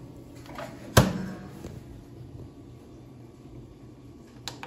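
Ninja countertop toaster oven's glass door shut with a single sharp clack about a second in, ringing briefly. Near the end a small click as a button on its control panel is pressed, over a low steady hum.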